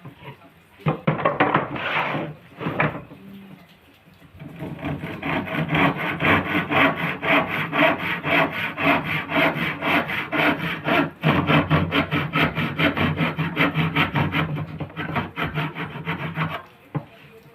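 Hand saw cutting through wood in quick, steady rasping strokes, with a few short strokes at first, then a long continuous run that breaks briefly about halfway and stops shortly before the end.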